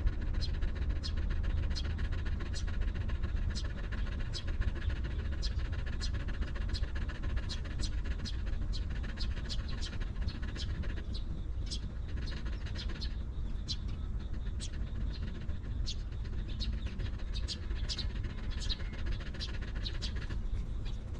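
Short, high-pitched animal squeaks or chirps repeating about twice a second over a steady low rumble.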